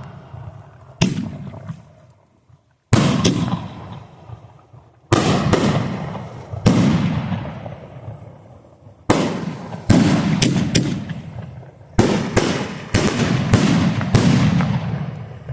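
6-inch double-break aerial firework shells bursting in a string of about ten sharp booms. Each boom trails off in a long rolling rumble, and some follow in quick pairs.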